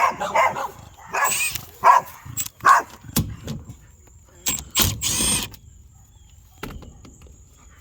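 A dog barking several times over the first few seconds, followed by a few sharp clicks and a short clattering rattle.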